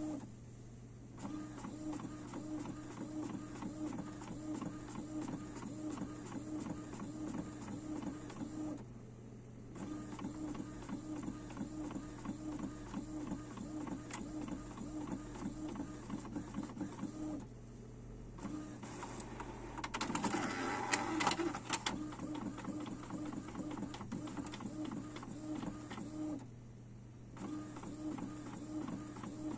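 Epson XP-255 inkjet printer printing, its print head running back and forth in a quick, even rhythm. The rhythm stops briefly three times, and a louder, rougher stretch of about two seconds comes around twenty seconds in.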